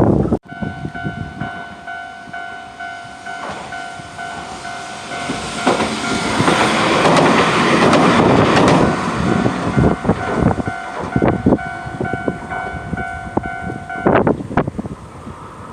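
Level crossing warning bell ringing steadily while a Hiroden tram passes over the crossing. The tram's rumble builds to its loudest in the middle, and its wheels knock over the rail joints as it moves off. The bell stops near the end.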